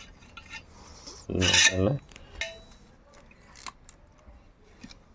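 Light metallic clinks and scraping as small motorcycle engine parts, a piston and its ring, are handled during reassembly, with a brief voice sound about a second and a half in.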